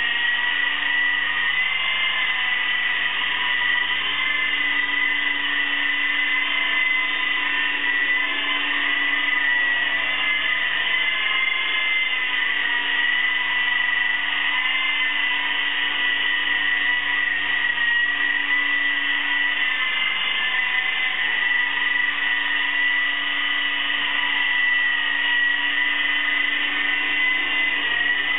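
Lama V3 coaxial RC helicopter hovering: a steady high-pitched whine from its electric motors and spinning rotors, wavering slightly in pitch.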